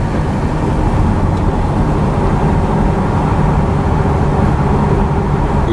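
Car engine hum and tyre noise heard steadily from inside the cabin while driving.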